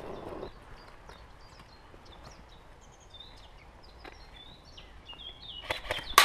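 Small birds chirping, with short high chirps scattered throughout. Near the end come a few sharp clicks and then one loud crack that echoes away.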